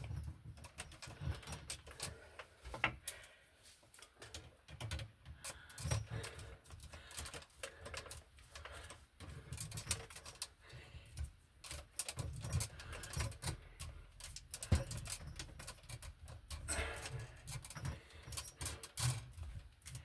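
Hands twisting a wire nut onto a splice of black copper wires: irregular small clicks, scrapes and rustles of wire, with low handling bumps.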